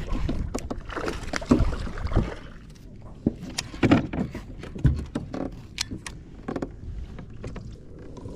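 Irregular knocks, clicks and splashing as a bass is reeled in and swung aboard a plastic fishing kayak.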